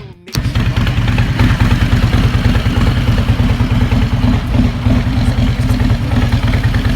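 Harley-Davidson Street Glide's Milwaukee-Eight 107 V-twin idling steadily through its stock exhaust, with a brief break right at the start.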